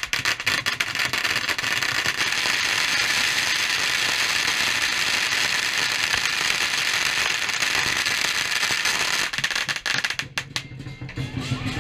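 Long strings of firecrackers laid across the street going off together in a dense, continuous crackle of rapid pops, thinning to scattered bangs near the end as the strings burn out.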